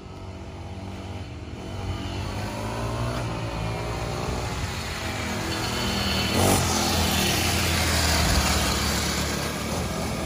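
Two children's pocket bikes running and revving as they ride, their small motors rising and falling in pitch and growing louder as they approach.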